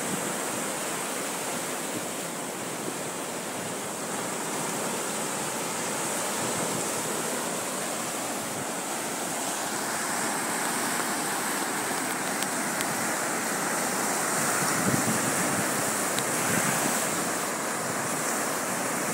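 Ocean surf breaking and washing up a sandy beach: a steady rushing noise that swells a little midway.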